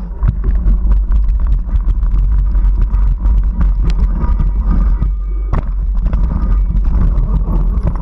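Mountain bike (a Specialized Enduro) riding fast downhill over a rocky dirt trail, heard from a camera on the handlebars. A heavy low rumble of wind and vibration on the camera runs under a dense rattle of clicks and knocks from the tyres, chain and frame bouncing over stones.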